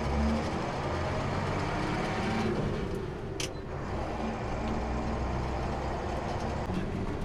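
International straight truck's engine running steadily as the loaded truck drives, with a low drone and road noise. A brief sharp click comes about three and a half seconds in.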